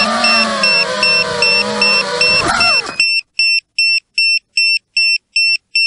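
A 5-inch FPV racing quadcopter's brushless motors whine, shifting up and down in pitch, over an electronic buzzer beeping steadily. About three seconds in, the motor whine sweeps up, drops and cuts off as the quad comes down in the grass. The high beeping goes on alone, about two and a half beeps a second.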